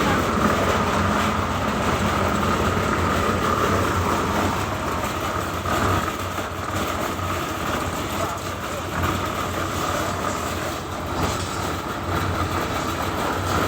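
Construction machinery running steadily during a concrete pour, a low hum under a steady whine.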